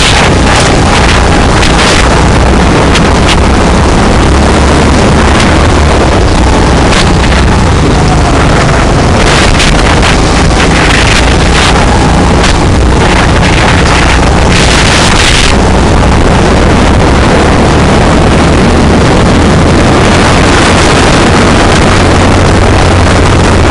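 Go-kart engine running under load, recorded on the kart itself, loud and overloaded, with wind rushing over the microphone. The noise surges brighter twice, around the middle of the stretch.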